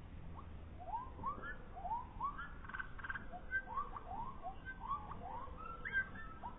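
Birdsong played back in slow motion: a quick run of short chirps, each sliding upward in pitch, several a second, over a faint steady tone.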